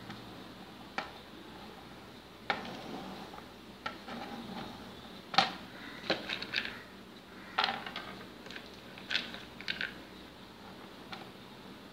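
Irregular knocks and clicks of a kitchen knife on a plastic cutting board while chopping dried figs, then hard almonds dropping and clicking onto the board. The loudest knock comes about five and a half seconds in.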